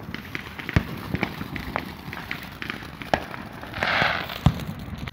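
Fireworks going off: a rapid run of crackling pops with a few louder bangs, and a short hissing rush about four seconds in.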